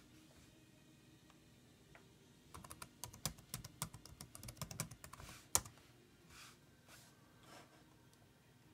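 Typing on a laptop keyboard: a quick run of keystrokes starting about two and a half seconds in, ending with one louder keystroke, as an SSH command is entered.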